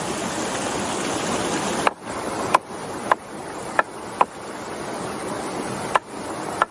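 Knife chopping pangolin meat on a wooden plank, about seven sharp strikes with a brief metallic ring at irregular intervals, over the steady rush of a shallow stream.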